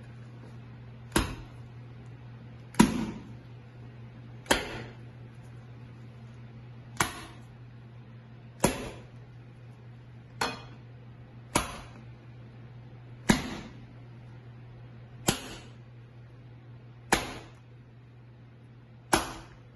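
Jalebi batter being beaten by hand in a glass bowl: the hand lifts the thick flour-and-water batter and slaps it back down hard, a sharp wet smack about every one and a half to two seconds, eleven in all. The beating works air into the batter to make it light.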